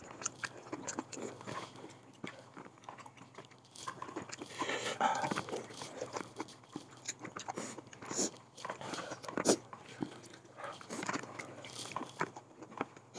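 A person chewing and biting into pieces of chicken, mixed with short sharp clicks of a spoon and chopsticks against a clay pot and rice bowl, a few of them louder about eight and nine seconds in.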